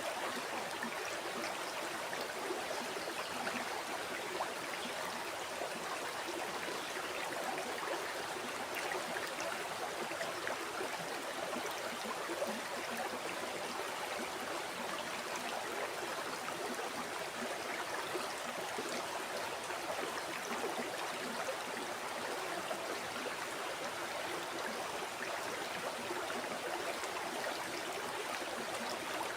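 A flowing river or stream: a steady rush of water with fine bubbling and trickling detail, unchanging in level.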